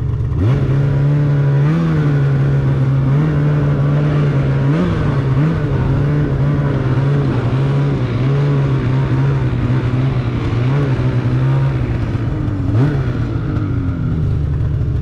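2024 Polaris 9R Khaos snowmobile's two-stroke twin running under way through its RPM titanium chambered muffler, a steady engine note with small rises and dips as the throttle moves. It eases off toward the end.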